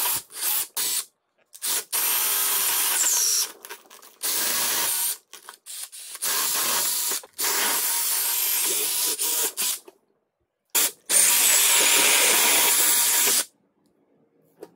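Cordless brushless drill boring holes through a car tyre's rubber tread, run in a string of short bursts of one to two seconds, stopping a little before the end.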